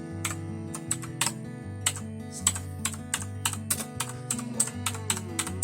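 Keys of a Zebronics Max Pro mechanical keyboard being pressed one at a time, a dozen or so sharp clicks at uneven intervals, over background music with a steady bass line.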